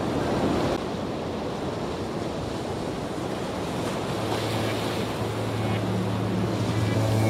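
Sea surf with wind on the microphone: a steady rushing noise. A low steady hum comes in about halfway through.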